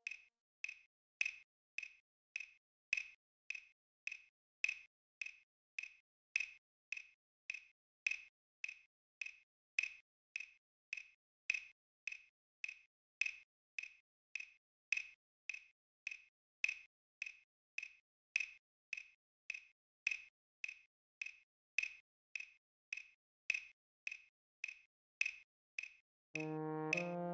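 A playback metronome clicks steadily, a little under two clicks a second, counting three-beat bars through a long rest in the euphonium part. About a second before the end, a euphonium comes in with a sustained melody note.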